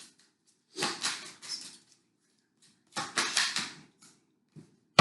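Tarot cards being shuffled and handled, in two short flurries of rapid riffling clicks, about a second in and again about three seconds in.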